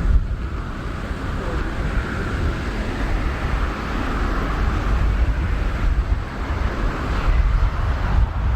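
Jet aircraft engine noise across the airfield, a steady hiss that swells a little a few seconds in, with wind buffeting the microphone.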